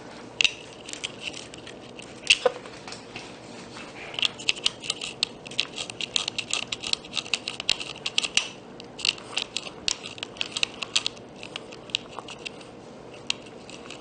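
Hands working on a radio-controlled truck's plastic and metal parts: a few single clicks, then a quick run of small clicks and rattles about four seconds in, thinning out toward the end.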